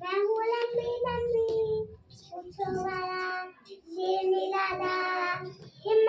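A child singing a rhyme about the king of the jungle, in short phrases on long held notes with brief breaks between them.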